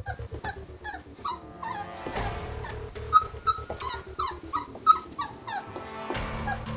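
Giant Schnauzer puppies whimpering and yipping in a quick run of short, falling cries, about three a second, over background music.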